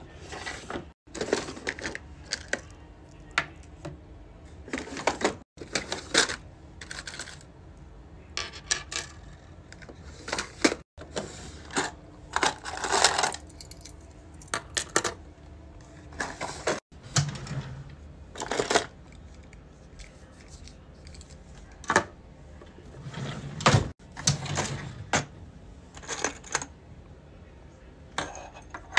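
Safety-keychain pieces being handled: metal key rings and keychain parts clink and click, and small items are set down on a desk, in irregular short taps with a brief rustle partway through.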